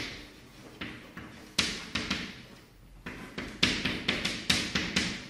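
Chalk writing on a chalkboard: a string of irregular sharp taps and short scratches from the chalk striking and dragging across the board, coming faster and closer together in the second half.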